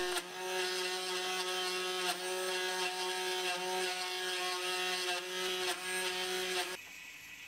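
Router spindle on a homemade CNC machine running steadily with its bit cutting into acrylic plastic, a steady whine that dips briefly in pitch twice. Near the end it drops away to a much quieter level.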